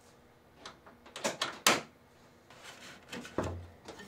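Scattered clicks and knocks, then a dull thump about three and a half seconds in, from hands working the latch of an SUV's hood to open it.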